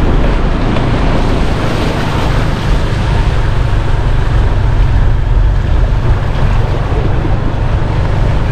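Motorbike ridden through shallow floodwater: a steady mix of engine noise, water washing around the wheels and wind rumbling on the microphone.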